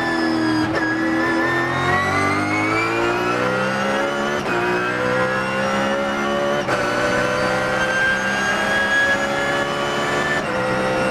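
BMW Z4 GT3 race car's V8 heard from inside the cockpit under full acceleration out of a slow corner. The pitch bottoms out about a second in, then climbs through the gears, with three quick upshifts: a little before halfway, past halfway, and near the end.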